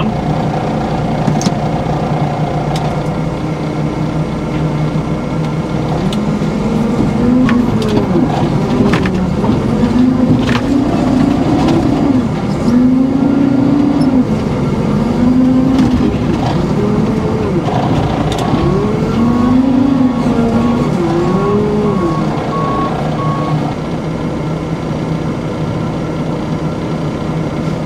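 Heavy diesel machinery heard from inside a telehandler's cab: a steady engine drone with an engine revving up and down again and again as the wheel loader works its bucket. A reversing alarm beeps evenly for several seconds in the second half.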